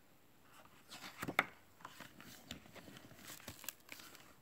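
A page of a hardcover picture book being turned by hand: paper rustling and crinkling with a few sharp clicks, loudest about a second and a half in, then lighter rustling.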